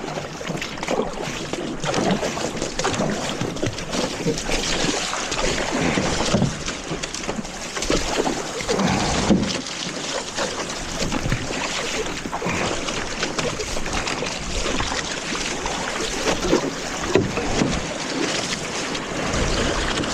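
Water rushing and splashing around a two-person outrigger canoe as it surfs ocean swell, with wind buffeting the microphone in irregular gusts.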